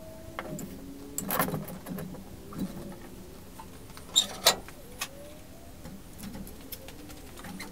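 Hand work at the rear of a VW bus: scattered metal clinks and knocks, with two sharp clicks close together about four seconds in.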